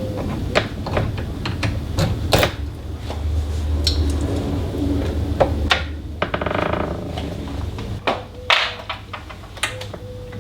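Scattered clicks and knocks of metal door-lock parts being handled and worked loose as an old door lock is taken apart. A short buzzing rasp comes about six seconds in.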